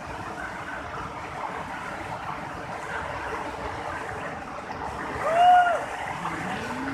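Floodwater rushing across a submerged road in a steady, even wash of churning water. About five seconds in, a short, loud call rises and falls in pitch over it, with a fainter rising call just after.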